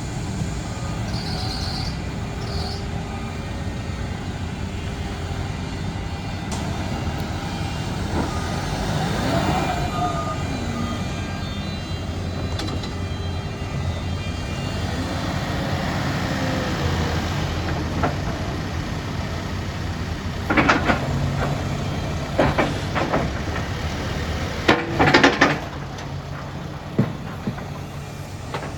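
Case 580 Super N backhoe loader's diesel engine running steadily. A whine rises and falls about nine seconds in, and several loud clanks come between about twenty and twenty-six seconds in.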